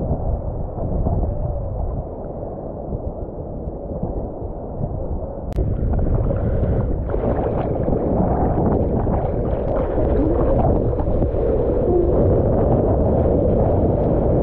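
Sea water sloshing and gurgling around a surfboard's nose, heard close and muffled. About five and a half seconds in it gets louder and splashier.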